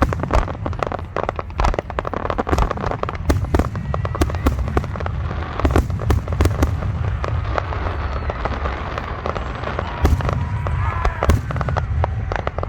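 Fireworks display going off: a rapid, unbroken run of many sharp bangs and crackles over a continuous low rumble of booms.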